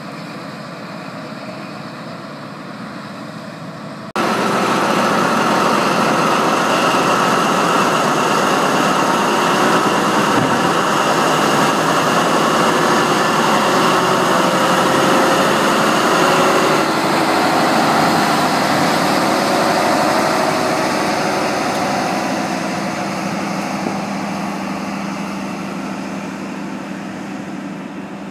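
Class 43 HST power car's diesel engine running loud close by as the train moves along the platform, then slowly fading as it draws away. Before that, a quieter steady rumble, which cuts off suddenly about four seconds in when the train noise starts.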